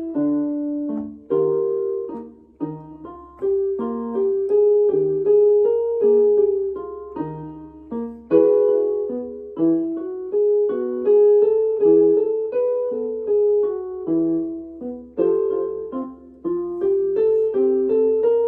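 Piano playing a short pattern of struck notes, repeated again and again, as the accompaniment to a vocal vowel exercise.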